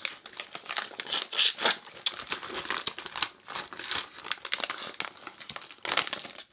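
A bag crinkling and rustling as it is handled, in quick irregular crackles with louder handfuls about a second and a half in and near the end.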